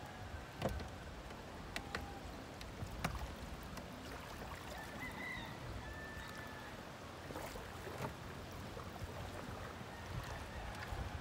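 Light lapping of shallow water against a small boat's hull, with a few sharp clicks and knocks from handling a small outboard motor on the stern.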